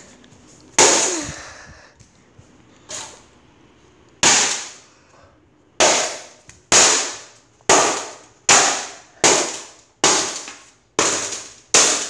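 Hammer smashing a cheap plastic Holmes box fan: about ten sharp blows, sparse at first and then coming about once a second, each with a short ring.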